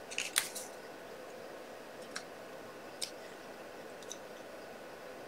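Faint paper-craft handling over quiet room tone: a couple of light rustles and clicks just after the start, then a few isolated soft ticks as card pieces are handled and set down.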